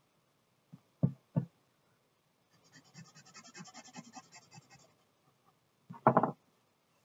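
Handling noise from charcoal drawing on paper over a wooden table: two sharp knocks about a second in, then about two seconds of fast, scratchy back-and-forth rubbing of a white drawing stick on the paper, and a louder cluster of thumps near the end as a hand is laid on the sheet.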